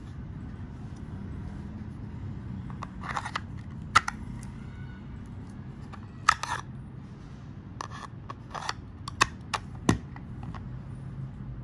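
Small fixed-blade knife being slid in and out of its molded Kydex sheath: a brief scrape, then several sharp clicks and snaps as the blade seats in the sheath's retention, over a steady low hum.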